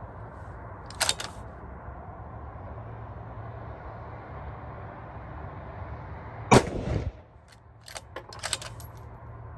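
A single shot from a 6mm Victrix Venus T bolt-action rifle about two-thirds of the way through, sharp and loud with a short ringing tail. About a second later comes a quick run of metallic clicks as the bolt is worked. A smaller click sounds about a second in.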